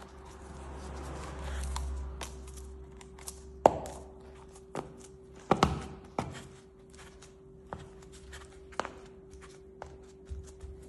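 Gloved hand pressing and patting a replacement mosaic parquet panel down into the floor: a low rubbing rumble for the first few seconds, then a handful of separate sharp knocks on wood, the loudest about three and a half seconds in and two close together in the middle. A faint steady hum runs underneath.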